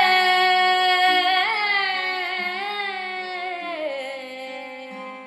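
Carnatic singing: a female voice holds the last note of the word "nannenjé", its pitch wavering with ornaments, then slides down about four seconds in and fades, over a steady drone.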